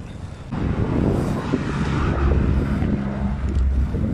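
Wind buffeting the microphone during a bike ride, a loud low rumble that jumps up about half a second in.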